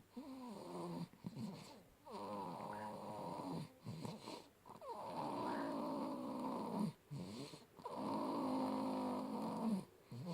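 Sleeping baby snoring loudly: a few short snores, then three long snores of about two seconds each, a second or so apart, each with a clear buzzing pitch.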